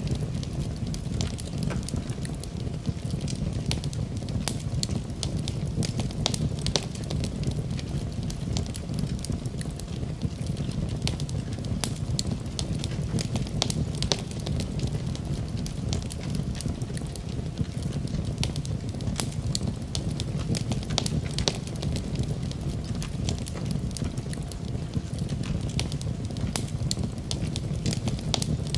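Wood fire crackling in a fireplace, with frequent sharp pops and snaps over a steady low rumble.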